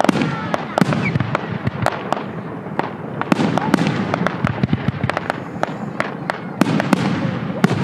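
Fireworks display: a dense, continuous run of bangs and crackles, with a few short whistles near the start.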